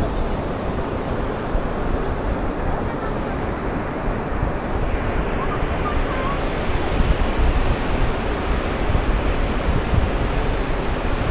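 Sea surf breaking on the beach at high tide, a steady rushing wash, with wind buffeting the microphone. The hiss of the surf grows brighter about five seconds in.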